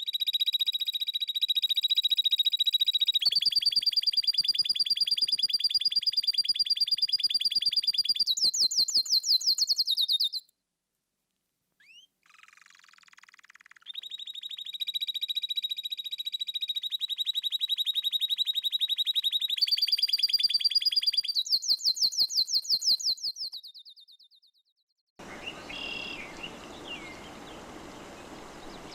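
A songbird singing a long, fast trill of rapidly repeated high notes that ends in a quicker, higher run; the song comes twice, each about ten seconds long, with a pause between. Near the end a different recording begins, with a steady background hiss and faint chirps.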